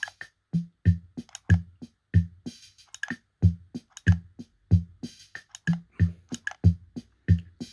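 Drum-machine beat playing through an M-Vave Universe reverb pedal set to zero reverb mix. A kick lands about every two-thirds of a second, with crisp hi-hat and snare hits between, and there is no switching pop in the signal.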